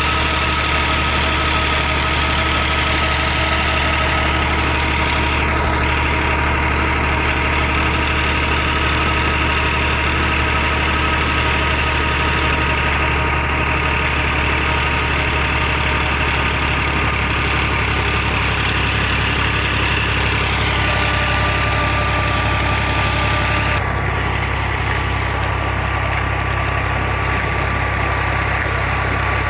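Ghazi tractor's diesel engine running steadily at constant speed, driving a tubewell pump through its shaft, over the rush of water gushing from the outlet pipe into a concrete tank.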